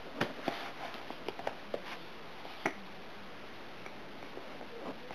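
Handling noise: faint irregular clicks and taps of fingers on a handheld device, over a low steady hiss, with the sharpest tap about two and a half seconds in.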